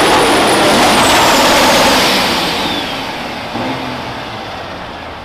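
Kenworth semi pulling truck's diesel engine running hard under load as it drags the sled, then backing off about two seconds in: the noise eases and a high whine falls steadily in pitch as the engine winds down.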